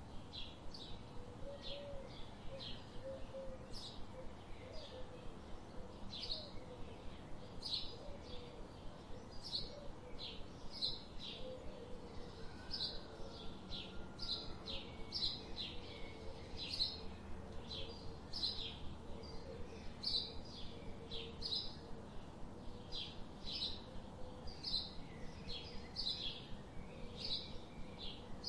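Birds chirping: short, high chirps repeated about twice a second, with a fainter warbling call underneath.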